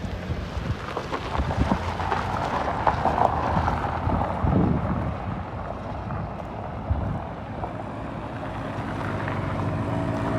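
A running engine humming steadily under wind buffeting the microphone.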